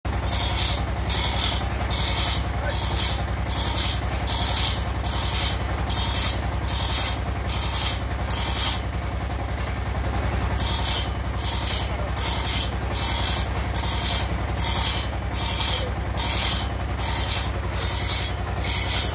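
Two-man hand saw rasping through a teak slab in steady push-pull strokes, about two a second, with a pause of about a second and a half midway.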